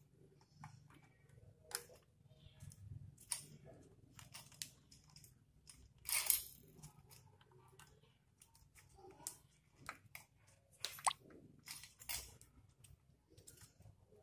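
Faint handling noises of a servo sewing-machine motor being assembled by hand: irregular clicks, taps and rustles of its plastic control box, cable and metal bracket, with a louder clatter about six seconds in and sharp clicks near the end.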